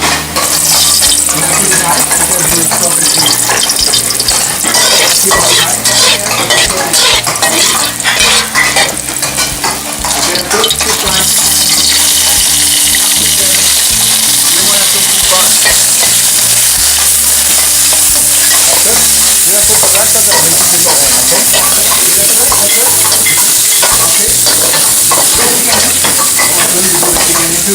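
Food stir-frying in a hot wok: loud sizzling with a spatula scraping and clattering against the wok for about the first ten seconds, then a steadier, even sizzle.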